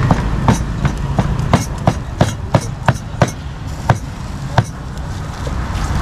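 Meat cleaver chopping grilled pork on a round wooden chopping block: about a dozen sharp chops, roughly three a second, spacing out and stopping about four and a half seconds in.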